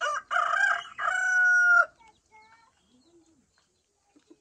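A rooster crowing once: a loud cock-a-doodle-doo in three parts, the last a long held note, lasting about two seconds.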